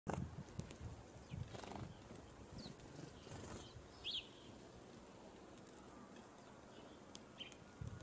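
A few short, high bird chirps, faint and scattered, the clearest about four seconds in, over a light background hiss with a few low thumps near the start and end.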